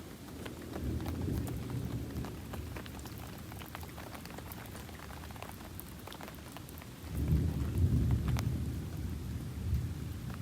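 Rain falling, with many scattered drop ticks over a steady hiss. Two spells of low rumble come through, one shortly after the start and a louder one about seven seconds in.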